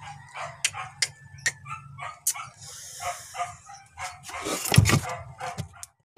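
A dog barking and yipping in short bursts, with a thump about five seconds in.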